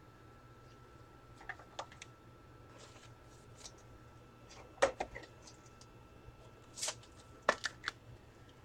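Faint, scattered clicks and taps of trading cards being handled and shuffled, with a short swish near the end, over a steady faint hum.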